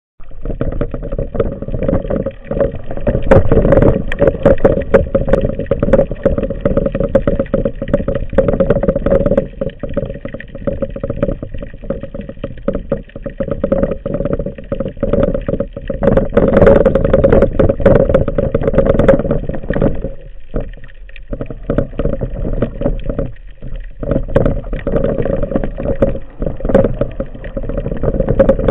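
Underwater sound picked up through a camera's waterproof housing: continuous rushing water noise with dense crackling over a steady hum. It dips briefly about twenty seconds in.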